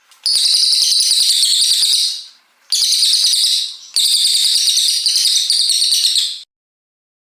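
A cililin coklat songbird singing long, rapid strings of high, whistled notes in three phrases, the last and longest breaking off abruptly about six and a half seconds in.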